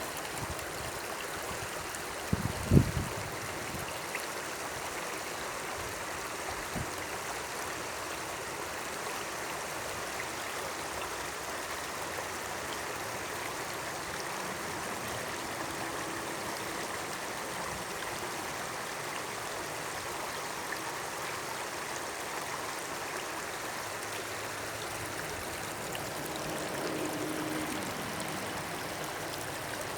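Small stream trickling and babbling steadily over its bed, with one brief low thump about two and a half seconds in.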